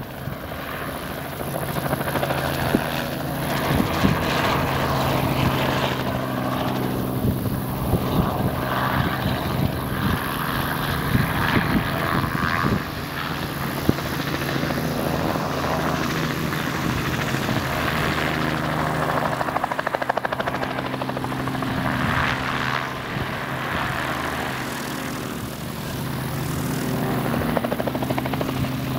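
Robinson R44 light helicopter flying overhead: the steady drone of its two-bladed rotor and piston engine, with a brief dip in level about thirteen seconds in.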